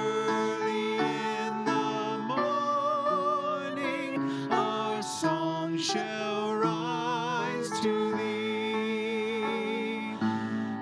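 Church worship music: a hymn played on instruments, with held sung notes that waver in vibrato.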